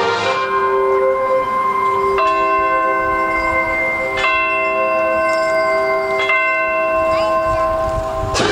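A bell tolls three times, about two seconds apart, each strike ringing on in several steady tones over a held note. A band chord fades out at the start, and the full band comes back in with a sharp hit near the end.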